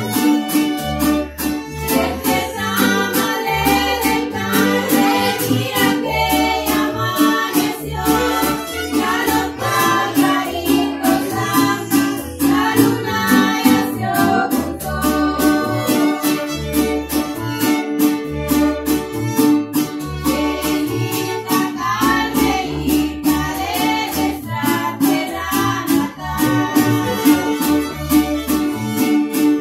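Music: a song sung over strummed guitar, with a bass line keeping a regular beat.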